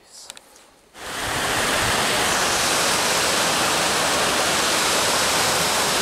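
Steady rush of water from a waterfall on a rocky river, cutting in abruptly about a second in.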